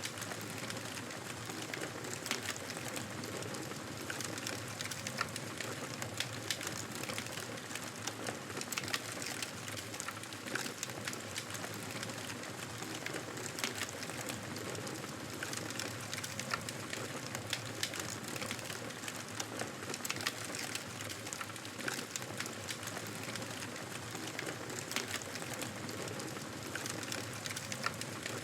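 Wood fire crackling in a fireplace: a steady hiss with frequent small, sharp, irregular pops.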